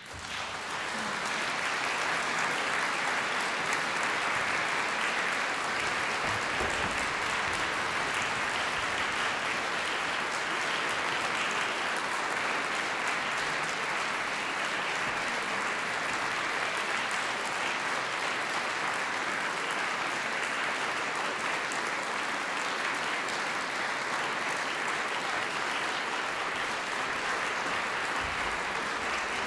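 Audience applauding: dense, even clapping that builds within the first second and then holds steady.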